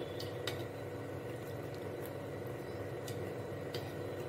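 Cooking oil heating in a nonstick kadai on the stove: a faint, steady hiss with a few small, scattered crackles.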